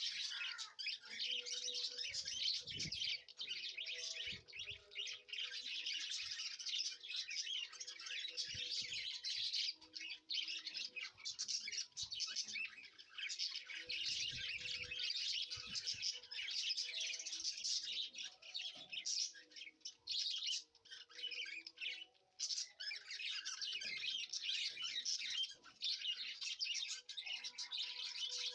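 Many small birds chirping and twittering without a break, with a few faint low thuds here and there.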